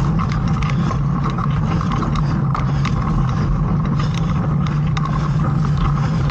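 Mountain bike rolling fast along a dirt singletrack: a steady hum of tyres on hardpack with wind on the microphone, and frequent small clicks and rattles of the bike over bumps.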